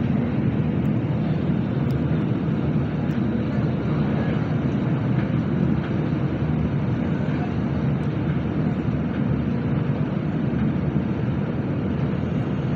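Steady, deep rumble inside a Nozomi Shinkansen bullet train car running at speed: the even rolling and running noise of the train, with no distinct events.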